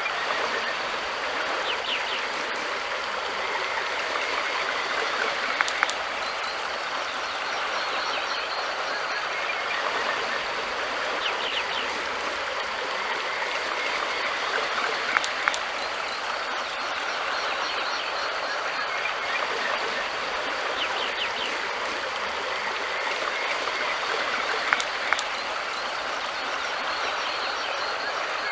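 River water flowing steadily, an even rushing with three brief sharp clicks spread through it.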